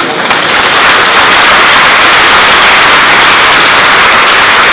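Loud audience applause breaking out all at once and holding steady, a dense clatter of many hands clapping together.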